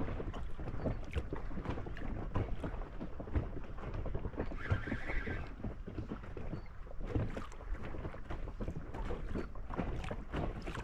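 Water lapping and slapping against a small boat's hull, with wind buffeting the microphone and scattered small knocks.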